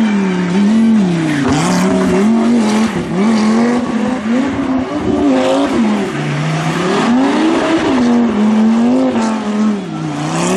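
Rally car engine revving hard, its pitch rising and falling again and again as the car accelerates and lifts off. A few short sharp cracks are heard along the way.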